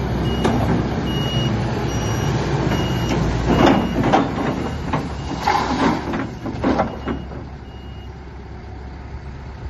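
Hyster H120-6 forklift's engine running low and steady as it drives, with its travel alarm beeping at regular intervals. The beeps fade out about eight seconds in, and a few short, loud rushes of noise come near the middle.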